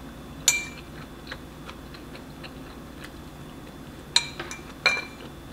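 A utensil clinking against a ceramic plate: three short, ringing clinks, one about half a second in and two close together near the end, with a few fainter ticks between.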